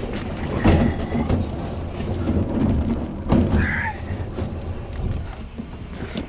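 Thumps and knocks of salvaged junk being lifted and loaded up, with two sharper impacts, the first about a second in and the second about three seconds in.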